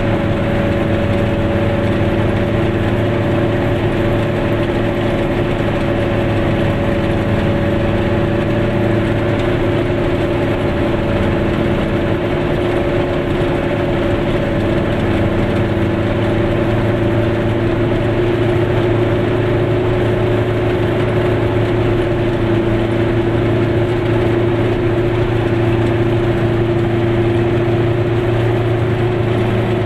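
Glas Goggomobil's air-cooled two-stroke twin engine running at a steady cruise, heard from inside the car as a constant drone with road noise.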